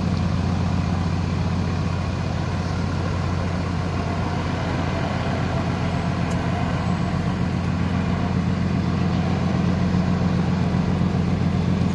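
Heavy Hino diesel truck engine running at low speed as the truck pulls slowly away and turns, a steady low drone that grows a little louder near the end.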